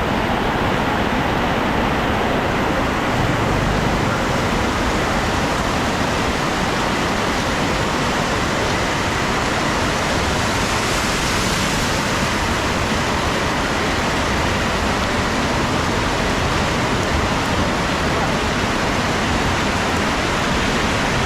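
Heavy rain falling, a loud, steady, dense hiss.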